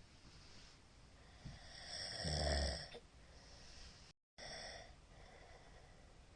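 A middle-aged man snoring in his sleep: one loud, low snore about two seconds in, with fainter breathing around it. It is heavy snoring that the sleeper puts partly down to drink. The recording drops out to silence for a moment about four seconds in.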